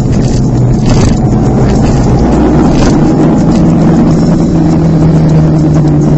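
Motorcycle engine running at steady cruising revs while riding, with wind rushing over the microphone; the engine note rises a little about halfway through.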